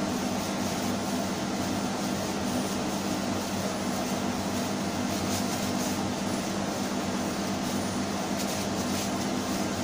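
Steady machinery hum in a motor yacht's engine room: an even low drone with a constant hiss over it, from equipment running while the engine is stopped.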